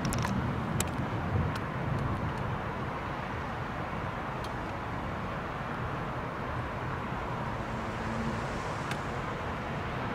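Steady distant city traffic hum at night. A low rumble eases off over the first couple of seconds, and a few faint clicks sound.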